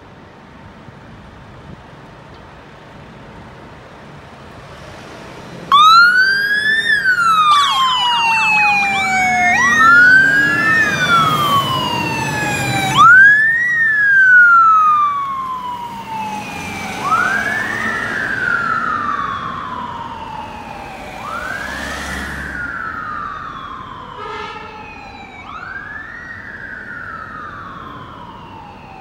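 Steady city traffic noise, then about six seconds in the sirens of fire engines and other emergency vehicles start up loudly. Several wails overlap, each rising fast and falling slowly, with a burst of quick yelps among them. The sirens grow gradually fainter as the vehicles move away.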